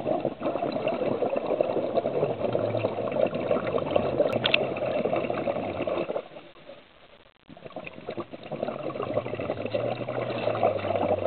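Scuba diver's exhaled breath bubbling out of the regulator, heard underwater: one long exhalation of about six seconds, a short quieter pause, then a second long exhalation.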